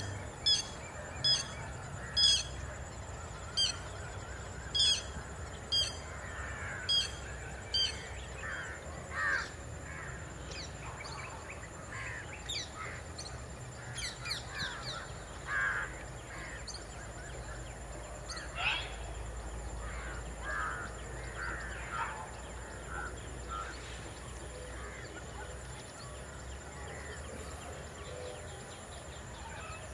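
Wild birds calling. A sharp call repeats about once a second for the first eight seconds, then scattered chirps and short calls follow. A steady high-pitched drone runs beneath them.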